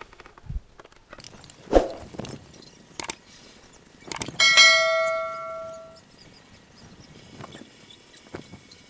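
Wooden knocks as plywood panels are handled, the loudest about two seconds in, then a metal object clangs about halfway through and rings on, fading away over about a second and a half.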